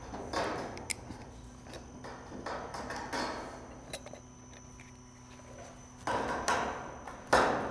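Colorbond steel barge capping flashing being cut and bent by hand at its end with snips and a hand seamer: a string of short sheet-metal scrapes and crinkles with a couple of sharp clicks, the loudest near the end.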